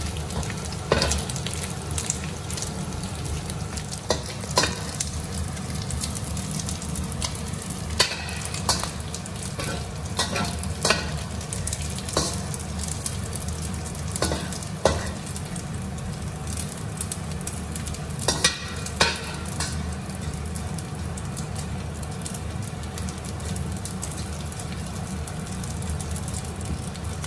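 Dried anchovies sizzling as they fry in oil in a stainless steel wok, with a steady hiss throughout. A metal spatula scrapes and knocks against the wok now and then, most often in the first two-thirds.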